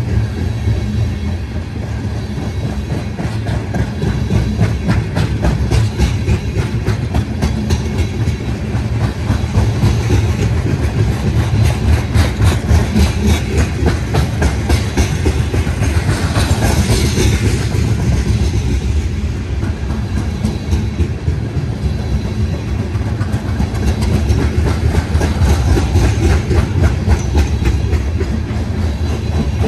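Tank cars of a crude oil unit train rolling past, their steel wheels clicking steadily over the rail joints above a low rumble. A brief rise in high hiss comes a little past halfway.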